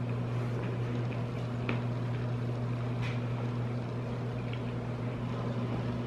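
A steady low hum at one pitch runs throughout, with a few faint clicks of chewing on top.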